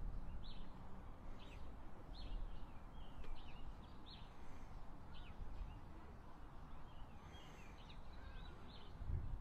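Small birds chirping in short, repeated calls over a low, steady background rumble.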